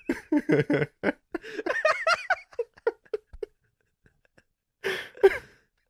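Men laughing in short, choppy bursts, then a pause and a brief breathy laugh near the end.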